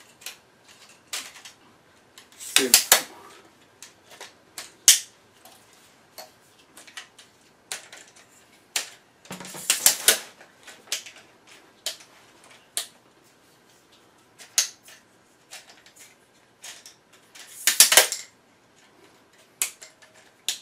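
Zomei Q555 aluminium tripod's flip-lock leg clamps being opened and snapped shut as the leg sections are pushed closed: a run of sharp clicks and clatter, with louder bursts about three seconds in, around ten seconds and near eighteen seconds.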